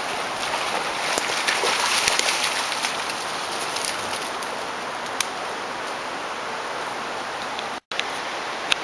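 Steady rush of floodwater running across a yard, a little louder in the first few seconds as a malamute splashes through it. The sound cuts out for an instant near the end.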